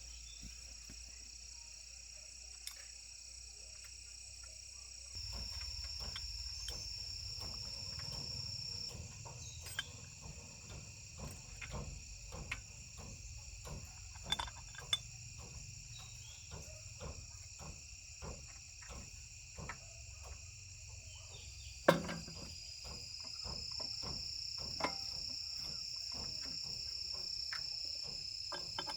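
Insects, crickets or similar, chirring in a steady high-pitched drone, with a scatter of short clicks and knocks over a low hum, one sharp knock louder than the rest about two-thirds of the way through.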